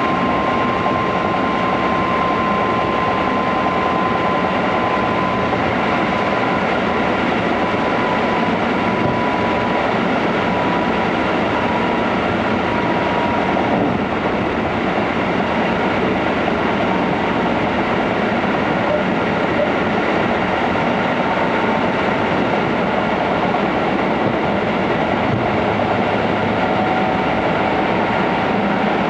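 Cabin noise of a Keikyu 600-series electric train running at speed: a steady rolling rumble with a thin high whine that drifts slowly lower in pitch.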